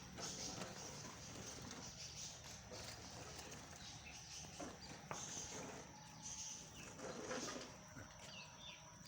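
Faint dairy-farm background with scattered bird calls and a few light knocks.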